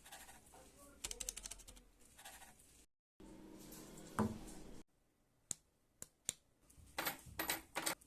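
Ice cracking: sharp snaps and rapid crackles, coming in separate cut-together bursts, with a few isolated loud cracks a little past the middle and a denser flurry near the end.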